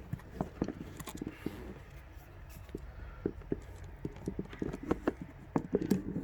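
Irregular light taps and clicks, with cards being handled on a table, growing busier near the end.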